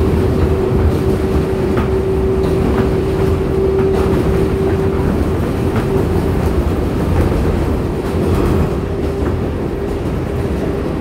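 R142A subway car running between stations, heard from inside the car: a steady, loud rumble with a constant hum and a few clicks from the wheels over the rails.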